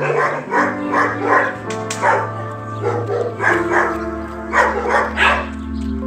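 Background music with held chords and a steady pulse.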